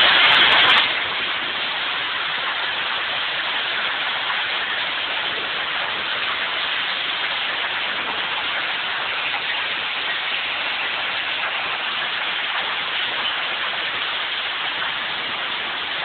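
Heavy storm rain pouring down steadily, louder and hissier for about the first second and then even.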